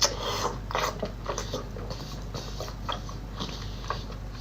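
Close-up eating sounds: a run of irregular crunchy bites and chewing, several small crackles a second.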